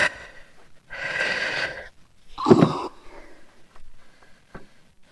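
A man's heavy breathing: a sharp exhale at the start, then two more noisy breaths about a second apart, with faint sound after.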